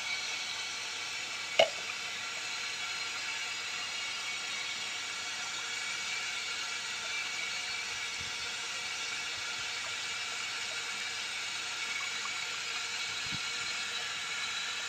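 Steady hiss of running water, with one sharp click about a second and a half in.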